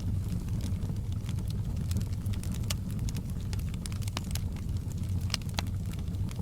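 Open log fire burning in a fireplace: a steady low rumble with frequent sharp crackles and pops, two louder pops a little past five seconds in.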